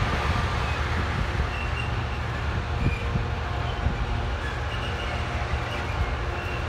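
Freight train of covered hopper wagons, hauled by a Class 66 diesel locomotive, passing at low speed: a steady low diesel rumble with the running noise of the wagons' wheels on the rails.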